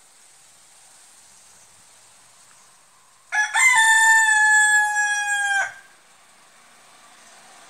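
A Tamil country-breed (nattu koli) rooster crowing once, about three seconds in: a short broken opening, then a long, loud held note that falls slightly in pitch before stopping abruptly.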